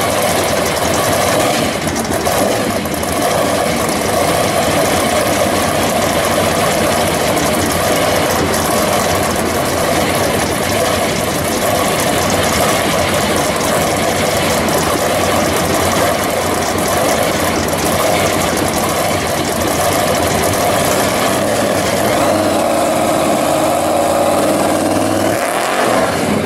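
Supercharged engine of a 1951 Chevy pickup running steadily, then revving up in the last few seconds as the truck pulls away with its rear tires spinning.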